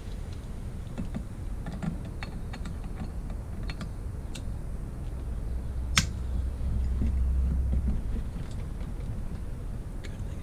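Scattered light clicks and taps of hand tools and metal engine parts being handled, with one sharper click about six seconds in, over a steady low hum.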